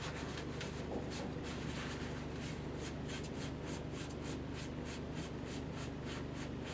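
A damp cloth being rubbed over a cork fishing-rod grip to wipe off sanding dust, in quick repeated brushing strokes that grow faster and more regular about halfway through.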